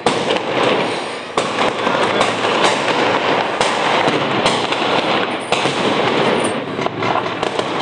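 Fireworks and firecrackers going off all around: a continuous dense crackle with sharp bangs about once a second or more, including a rocket bursting overhead.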